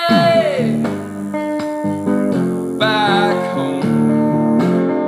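Background music led by guitar, with held notes that slide down in pitch at the start and again about three seconds in.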